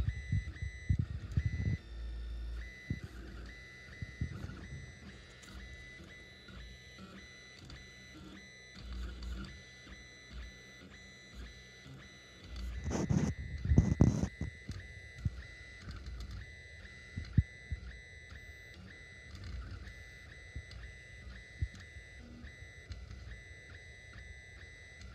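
Anet A8 3D printer's stepper motors whining as they drive a pen through short writing strokes, with faint knocks from the carriage changing direction. There is a louder burst of movement about halfway through.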